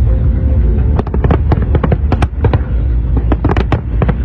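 Aerial fireworks display: rapid volleys of shell bursts, many sharp bangs coming in quick clusters about a second apart, over a steady low rumble.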